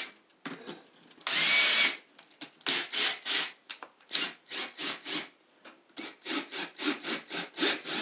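Cordless drill driving a screw into a plastic toolbox. The motor runs once with a steady high whine for under a second, then the trigger is pulsed in short quick bursts, about two or three a second, as the screw is worked in.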